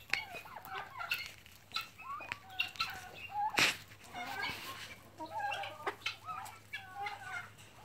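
Flock of chickens clucking and calling over one another in many short calls, with a loud sharp click a little past the middle.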